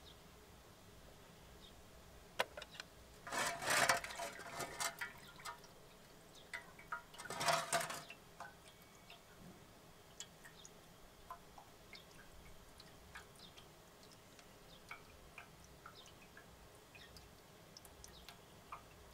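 Old coolant draining out of the Honda CB500F engine's drain-bolt hole: two short gushes of liquid, one about three seconds in and one about seven seconds in, then scattered drips.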